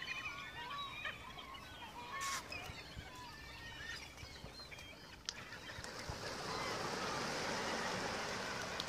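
A large flock of gulls calling, with many short cries overlapping. From about six seconds in a rising rush of wings and splashing water builds as the flock lifts off the water.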